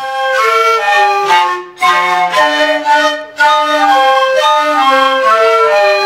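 Andean flute playing a melody of short, stepped notes in falling phrases, breaking off briefly twice.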